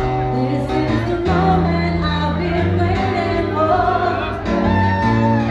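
Female vocalist singing live over long held synth chords, a breakdown without the heavy bass beat, heard through a club PA.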